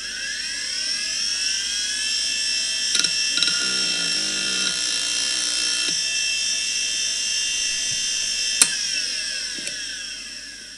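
3.5-inch IDE hard drive spinning up with a rising whine, then running at speed with a steady whine, with a few clicks and a short burst of rapid head-seek chatter as it initialises. About two-thirds through, a sharp click is heard and the whine falls as the drive spins down.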